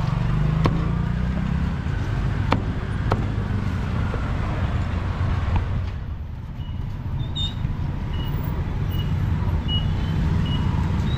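Steady low rumble of street traffic, with a few sharp knocks of a cleaver chopping roast pork on a wooden block in the first half. In the second half a short high electronic beep repeats a little faster than once a second.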